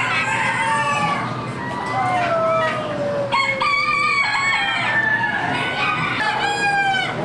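Many caged chickens calling at once: roosters crowing in overlapping calls at different pitches, with hens clucking.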